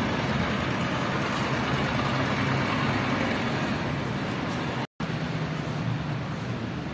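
Steady road traffic noise with a low engine hum from passing and running vehicles. It cuts out for an instant about five seconds in.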